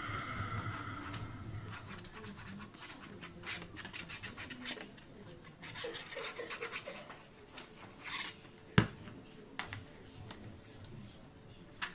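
Paper being handled and rubbed while a scrapbook piece is glued: scattered scratching and rubbing with light taps, and one sharp click about nine seconds in.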